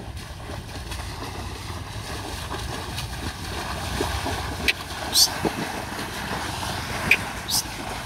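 Wind rumbling on the microphone, with indistinct voices in the background. Two short shrill sounds fall in pitch, about five seconds in and again near the end.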